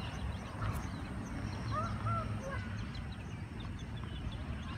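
Birds chirping and calling throughout over a steady low rumble of wind on the microphone, with a single sharp knock a little under a second in.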